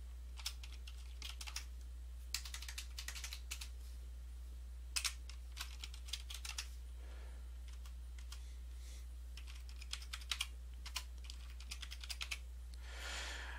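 Typing on a computer keyboard: quick runs of keystrokes with pauses between them, over a steady low hum.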